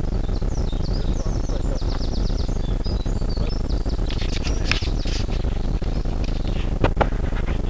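Small birds chirping and singing in quick high trills over a steady low rumble, with a couple of sharp clicks near the end.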